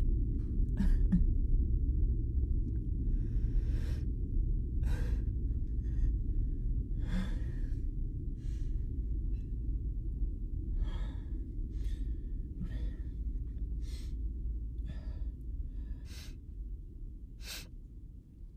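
A man gasping and breathing hard, about one breath a second, over a steady low rumble. The breaths and the rumble fade away toward the end.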